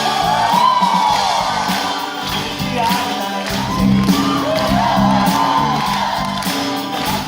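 Live music with singing from a stage musical, with the audience whooping and cheering along.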